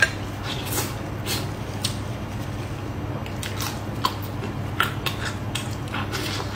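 Close-miked eating sounds of braised pork knuckle being bitten and chewed: irregular wet smacks and sharp clicks over a low steady hum.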